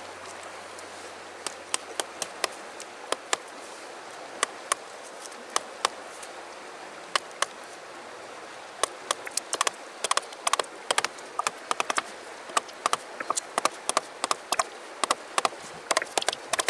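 Wooden-handled chisel being driven into a dry dead log by blows from a wooden branch used as a mallet: sharp wooden knocks, spaced about a second apart at first, then quicker, several a second, from about halfway.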